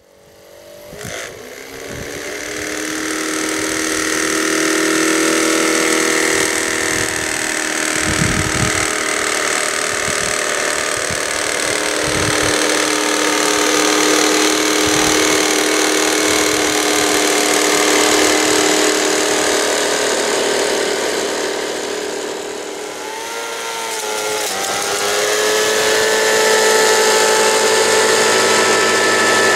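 Steady whine of the small electric motors driving a model garden-railway rotary snowplough and its locomotive. A few low thumps come through. About 22 seconds in the motors slow, then climb again to a higher, steady pitch.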